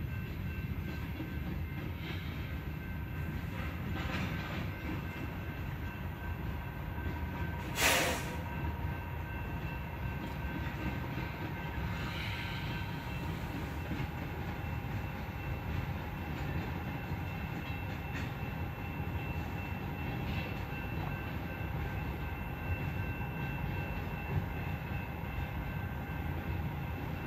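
Freight train of tank cars and flatcars rolling past through a grade crossing: a steady rumble of wheels on the rails, with one sharp, loud crack about eight seconds in.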